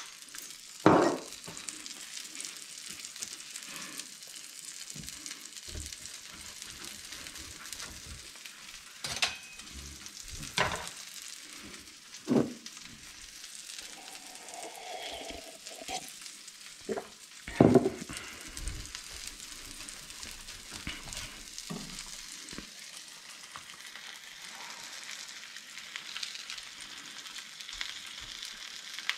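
Egg, cheese and spring-onion mixture sizzling in an oiled frying pan, a steady hiss. A few sharp knocks of kitchenware punctuate it, the loudest about a second in and again past the middle.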